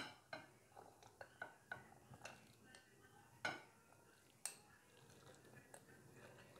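A metal spoon scraping and clinking against a glass bowl as boiled chickpeas are tipped and spooned out into another glass bowl: a string of faint, sharp clinks, the clearest right at the start and about three and a half and four and a half seconds in.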